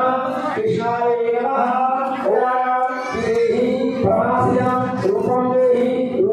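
A man chanting Hindu mantras into a microphone, in long drawn-out sung notes, for the havan fire offering.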